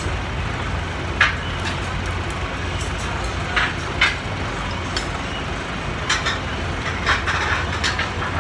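Steady low rumble of city traffic, with a handful of short clicks and clinks of chopsticks against tableware.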